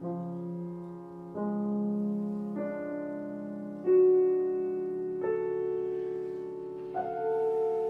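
Steinway grand piano playing a slow sequence of six sustained chords, a new one struck about every second and a half and each ringing on into the next. The loudest chord lands about four seconds in. The music is a contemporary chamber piece.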